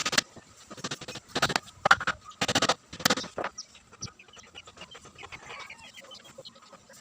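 Chickens clucking in a series of short, loud calls in the first few seconds, then quieter scattered clucks.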